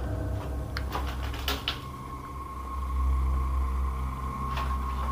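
Old wooden window shutter being worked open by hand: a few sharp clicks and knocks from its latch and boards in the first two seconds, and one more near the end. A steady high tone sets in after about two seconds.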